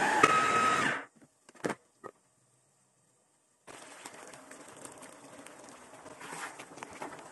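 An electric food chopper runs, blending tomatoes and green chillies, then cuts off suddenly about a second in, followed by a couple of clicks. After a short silence, chicken pieces crackle quietly in a hot pan as a blended paste is stirred in, with many small ticks.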